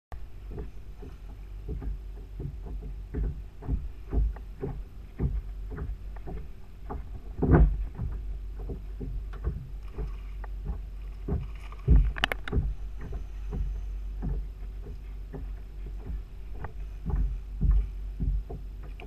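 Wind rumbling on the microphone, with small waves slapping irregularly against a kayak hull, two or three times a second. There are louder knocks against the boat about seven and a half and twelve seconds in.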